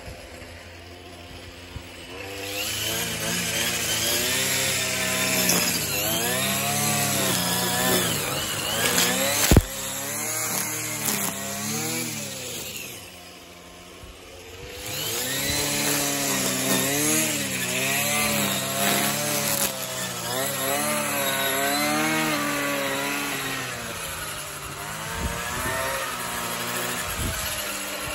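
String trimmer's engine running, its pitch swinging up and down as it is throttled. About halfway through it drops back to a low idle, then revs up again. A single sharp knock about a third of the way in.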